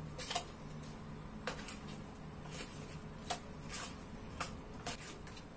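A wooden spoon stirring strawberries in sugar syrup in a stainless steel pot. It is faint, with a few soft clicks and knocks spaced through it.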